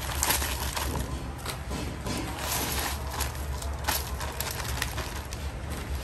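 Coarse sea salt pouring from a plastic bag into a large aluminium wok, a dense crackling rattle of grains, then crunching as a hand pushes through and spreads the salt near the end.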